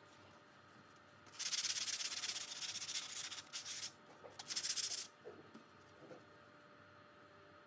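Hand sanding of a CNC-cut MDF sign faced with HPL, sandpaper rubbed over the board in quick back-and-forth strokes: a scratchy hiss lasting about two and a half seconds, then a second shorter burst.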